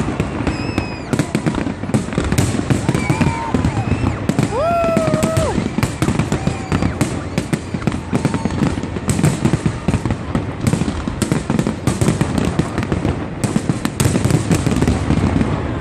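Fireworks display in a dense, continuous barrage of bangs and crackling reports, with no let-up.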